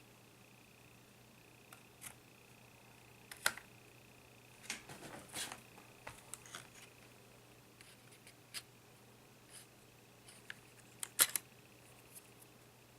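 Scattered small clicks and handling knocks from hands and tools working on an Acer E5-411 laptop being taken apart, in irregular clusters with the sharpest pair about eleven seconds in, over a faint steady hum.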